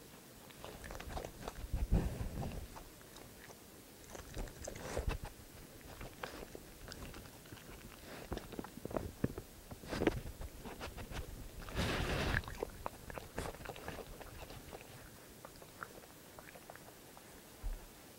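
A raccoon chewing food close to the microphone: irregular wet crunches and bites, with a few louder, noisier bursts, the longest about two-thirds of the way through.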